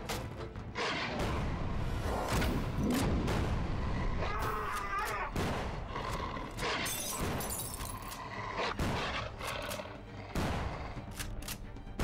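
Film gunfight sound: rapid gunshots from automatic weapons in irregular bursts, with short gaps between volleys.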